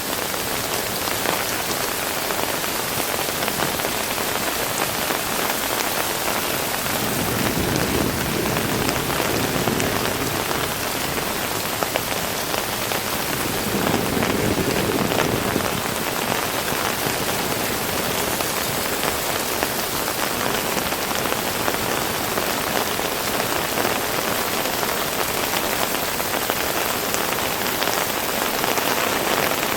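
Heavy rain falling steadily, a dense hiss of drops with scattered sharper taps on hard surfaces, swelling a little twice in the middle.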